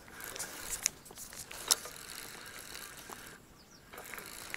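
Spinning fishing reel being cranked to bring in a freshly hooked fish, its mechanism whirring with a few sharp clicks; it goes quieter for a moment a little after three seconds in, then carries on.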